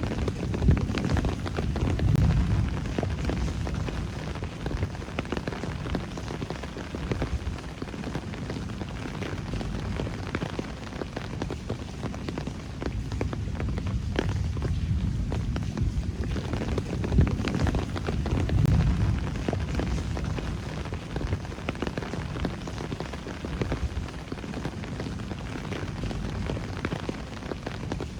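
Steady rain falling in a city at night, a dense hiss with many small drop ticks. A low rumble swells twice, near the start and about two-thirds of the way through.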